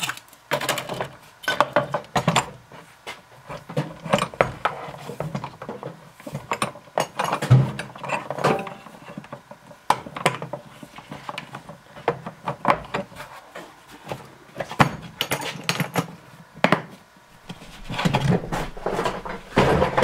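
Irregular clacks, clicks and rattles of an angle grinder, its cord and its discs and wire wheel being packed into a hard plastic tool case.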